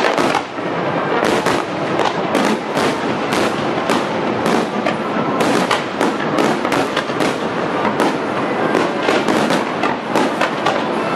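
Aerial fireworks display: a rapid, nearly unbroken string of shell bursts and crackles, several bangs a second.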